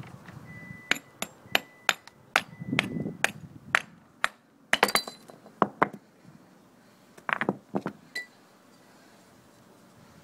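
Stone-on-flint percussion: a flint core struck through a stone punch. It gives a run of about ten sharp clicking taps, roughly three a second, with a faint ring. A louder cluster of cracks comes about five seconds in as the spall breaks from the core, followed by a few more taps and a short group of clicks near the end.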